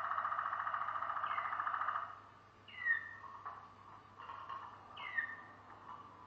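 Malinois Waterslager canary singing: a fast, rolling low trill for about two seconds, then stopping and giving short falling whistled notes about once a second.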